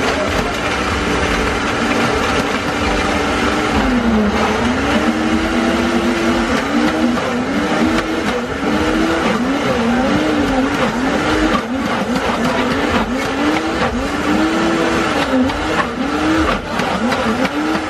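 Electric countertop blender running at high speed, crushing ice and red fruit for a fruit shake. Its motor pitch holds steady for the first few seconds, then dips and climbs back about once a second as the load on the blades shifts.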